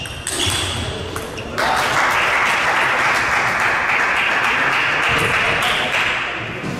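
A table tennis ball pinging a few times as it bounces loose after a point. A steady rushing noise then starts about a second and a half in and lasts about four seconds before it fades.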